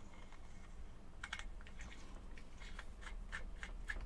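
Small metal atomizer being screwed onto the threaded connector of a vape box mod, a run of faint clicks and ticks from the threads and fingers starting about a second in.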